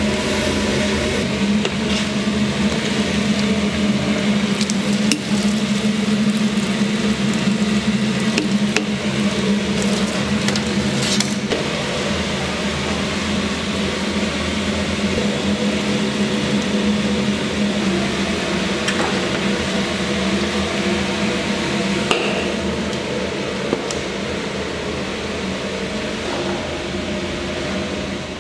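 Steady machine hum with a strong low drone, under a noisy clatter, with occasional sharp clinks and knocks.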